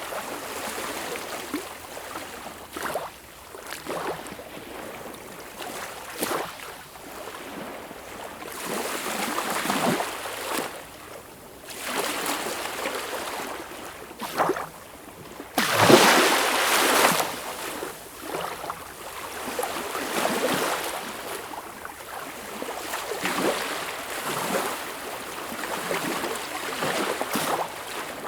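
Sea waves washing and breaking in an unbroken surging wash, with short splashes throughout and one louder wave crashing in suddenly about halfway through.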